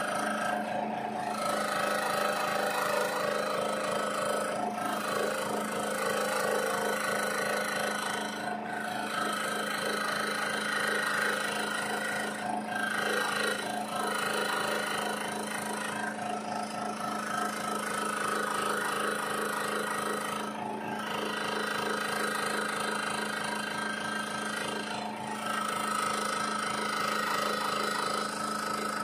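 Variable-speed electric scroll saw running, its reciprocating blade cutting a small acrylic medal blank. A steady machine hum and buzz, with brief dips in the cutting sound every few seconds.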